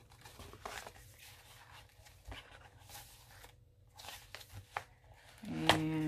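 Faint rustling and crinkling of paper pages being handled and turned in a handmade junk journal, with scattered soft clicks. A voice starts to speak near the end.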